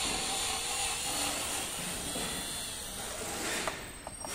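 A steady hiss that stops about three and a half seconds in.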